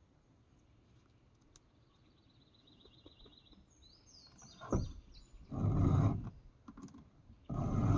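Birds chirping: a faint high trill, then a quick run of rising chirps. In the second half three loud rushing bursts of noise, each under a second, drown them out.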